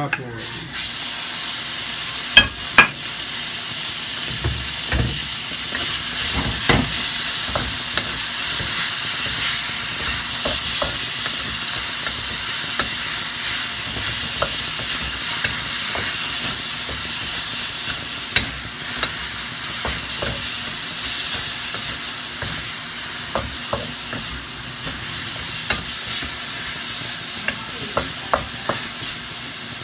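Sliced pork sizzling in a hot metal wok, the sizzle jumping up as the meat goes in at the start, then a steady fry as it is stir-fried with chopped onion. A wooden spatula scrapes and knocks against the wok now and then, with two sharp knocks a few seconds in.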